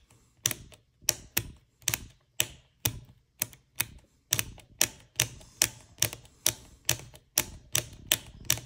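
Tektronix 7904 oscilloscope front-panel push buttons being pressed over and over, sharp clicks about two to three a second, some in quick pairs. The buttons are being worked in with WD-40 to free switches that stick, and this one still feels a little rough.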